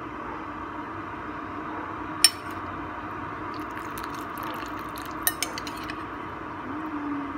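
Metal ladle clinking against a ceramic soup pot while scooping chicken herbal broth and pouring it back. There is one sharp clink about two seconds in and a few lighter clinks a little later, over a steady background hum.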